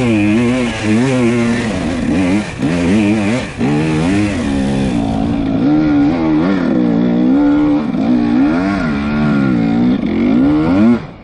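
KTM 300 EXC two-stroke enduro motorcycle engine under riding load, its pitch rising and falling over and over as the throttle is worked. The engine sound drops away sharply near the end.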